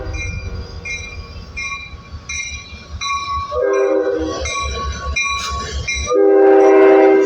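Freight locomotive air horn over the rumble of a passing train: a short blast about halfway through, then a long, louder blast near the end.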